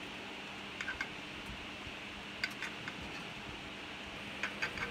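A table knife clicking lightly against a glass baking dish in three small bursts, about a second, two and a half seconds and four and a half seconds in, as baked buns are cut apart in the dish. Under the clicks runs a steady low hum.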